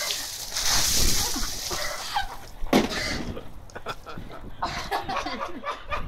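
A bucket of ice water tipped over a person's head, the water splashing down over him and onto the ground, with a sharp knock a little under three seconds in.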